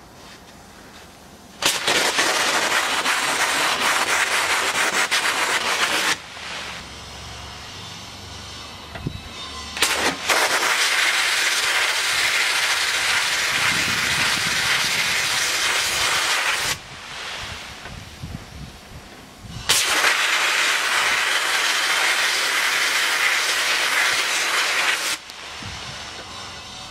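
Compressed-air sandblasting gun blasting abrasive onto a moped frame: a loud hiss in three long bursts of about four to seven seconds, each starting and cutting off suddenly as the trigger is pressed and released.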